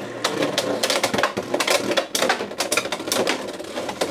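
Beyblade X tops, Driger Slash and an opponent, spinning and clashing in a plastic stadium: rapid, irregular clacks and knocks over a steady whir.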